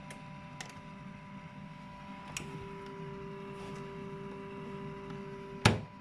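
LG front-loading washing machine being operated by hand: a few light clicks, a steady electrical tone, a second lower tone setting in about two and a half seconds in, then one sharp loud clunk near the end.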